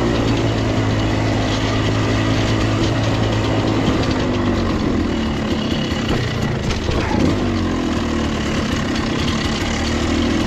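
The two-stroke engine of a 1995 KTM 300 dirt bike running as it is ridden slowly along a rough forest trail, the revs rising and falling with the throttle.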